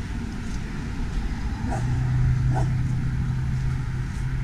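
A dog barking a few short times, with a steady low engine hum setting in about two seconds in.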